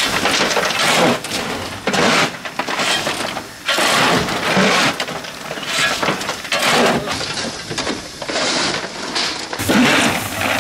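Two-foot gauge Hudswell Clarke steam locomotive's exhaust beating heavily, about once a second, as the engine works hard on a steep grade.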